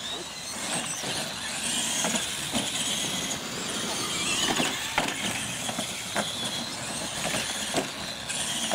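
Radio-controlled monster trucks racing over a dirt track: a steady whine from their motors and gears, with several sharp knocks as they bounce and land over the ramps and obstacles.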